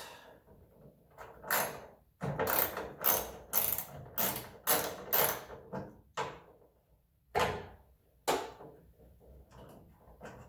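Socket ratchet clicking in short bursts, about two strokes a second and then a few slower ones, as a bolt on the hood hinge is undone.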